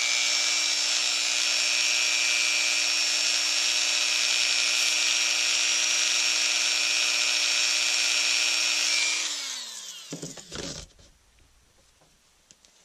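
Dremel rotary tool with a buffing pad running at a steady speed while buffing a steel Glock safety plunger with polish, a high whine over a hiss. It is switched off about nine seconds in, and its whine falls away, followed by a couple of knocks.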